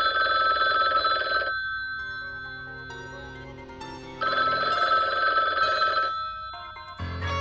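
Telephone bell ringing twice in a regular ring cadence, each ring about two seconds long with a pause of almost three seconds between. Music comes in near the end.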